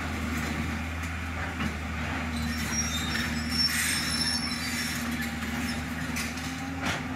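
Tata Hitachi EX215 excavator's diesel engine running steadily under load as the machine digs at a rock face. High-pitched metallic squeals come in between about two and a half and four and a half seconds in, and there is a brief knock near the end.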